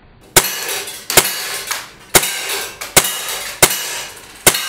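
CZ 75 CO2 blowback BB pistol fired in quick succession: six sharp shots a little under a second apart, each followed by a short echo. The string runs the magazine down to empty.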